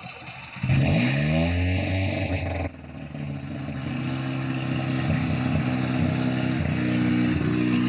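1983 Mazda RX-7's two-rotor Wankel rotary engine catching on the starter about half a second in and revving up. It drops back abruptly after a couple of seconds, then settles into a steady idle that slowly grows louder.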